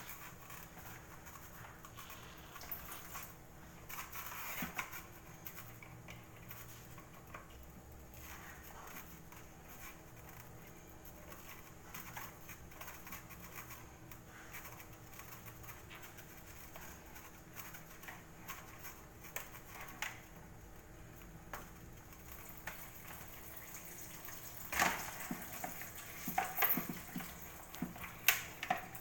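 Scattered, faint plastic clicks and knocks as the pipe fittings of an eSpring water treatment unit are handled and disconnected, with a quicker run of sharper clicks near the end.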